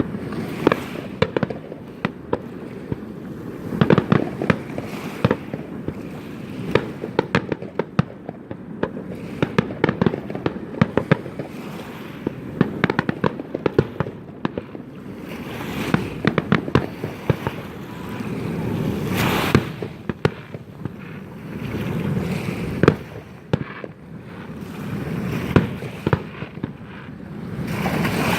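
Fireworks display: dense rapid bangs and crackling reports throughout, with a rushing hiss that swells and fades several times in the second half.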